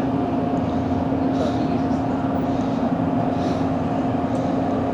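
Steady machinery hum aboard a cruise ship, an even drone with a low tone and a higher tone held throughout.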